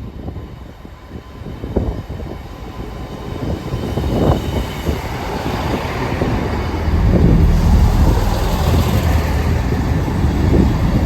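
A train running through the station. Its low rumble grows louder over several seconds, then stays loud and steady with a rushing hiss.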